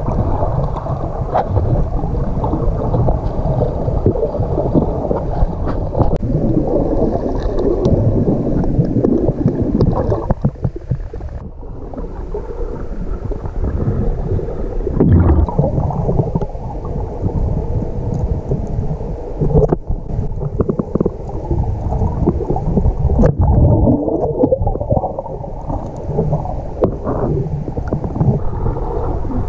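Muffled underwater audio from a GoPro held in a river: a dense, low rumble of moving water. A few short knocks, the clearest at about 15, 20 and 23 seconds in.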